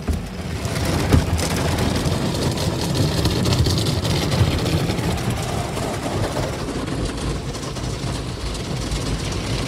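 Spinning brushes of a Ryko Soft Gloss Max automatic car wash scrubbing over the car's windows and body, with water spray and the wash machinery running, heard from inside the car. One sharp knock about a second in.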